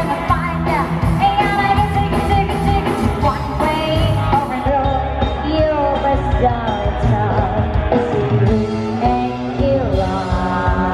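Rock-style music with a singer's voice over a full band accompaniment.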